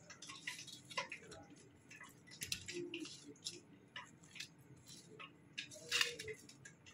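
Sauce-coated chicken wings being mixed by hand in a stainless steel bowl: irregular wet squishes and light clicks against the bowl, the loudest about six seconds in.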